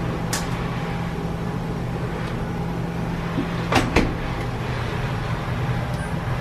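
Top-load washing machine and laundry-room hum, steady and low, while the machine is loaded and set. A sharp click comes just after the start, and two more come close together about four seconds in.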